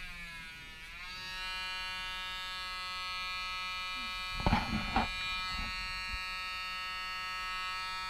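Handheld rotary tool whining steadily as it grinds a parrot's toenails. Its pitch drops during the first second as its speed is turned down, then holds steady. A short, louder, harsher burst comes about halfway through.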